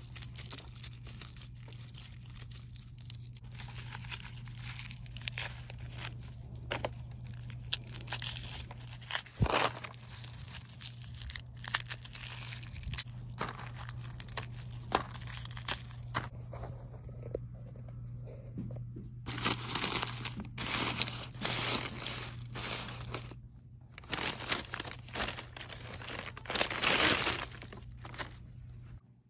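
Dry papery garlic skins and a paper bag crinkling and crackling as whole garlic bulbs are broken apart into cloves by hand. Irregular sharp cracks and rustles, busiest in the last third.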